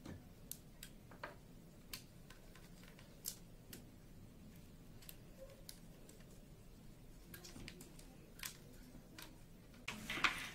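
Soft, scattered clicks and taps of fingers working optical fibre into a plastic splitter box tray, with a louder rustle of handling about ten seconds in.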